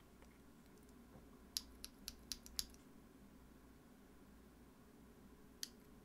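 Keypresses on a mechanical keyboard's tactile switch, a Holy Panda housing fitted with an original Holy Panda stem: a quick run of about six sharp clacks, then one more near the end.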